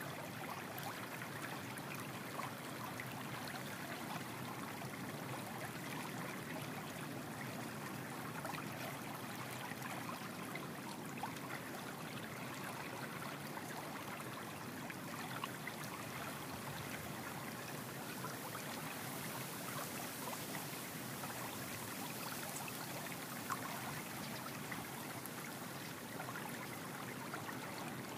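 Spring whisk beating eggs and sugar in a ceramic bowl: a steady wet swishing with occasional light clicks.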